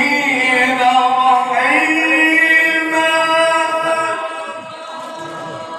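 A male qari reciting the Quran in melodic tilawah style, one long sustained note that steps up in pitch about two seconds in, holds, then slowly fades.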